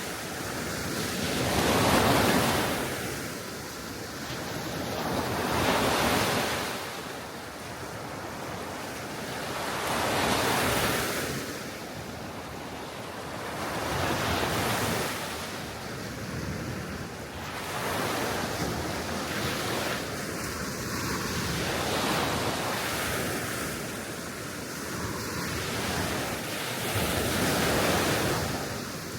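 Gentle sea waves washing onto the shore, each swell rising and falling away about every four seconds, with a steady wind.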